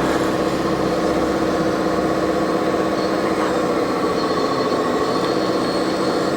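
Radio-controlled construction models running with a steady mechanical, engine-like hum.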